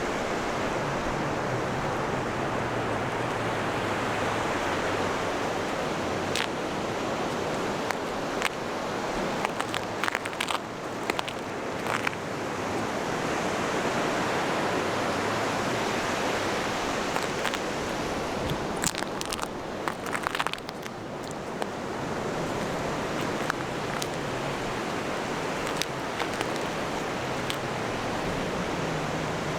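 Sea waves washing on the shore in a steady rush of surf. A few sharp clicks and knocks come in the middle stretch.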